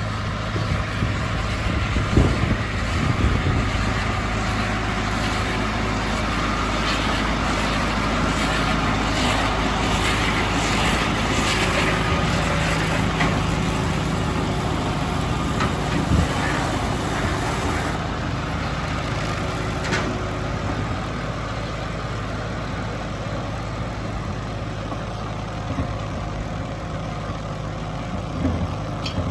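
Deutz-Fahr 5130 TTV tractor running steadily with a midi baler in tow, with a few separate knocks and clatters from the machinery.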